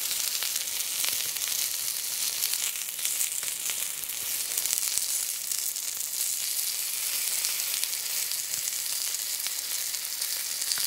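Skewered chicken sizzling on a small wire grill over glowing embers: a steady hiss with scattered small crackles.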